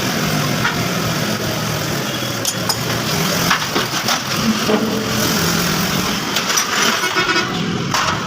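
Small 70 cc motorcycle engine running steadily, its pitch wavering slightly, with scattered clicks and street noise.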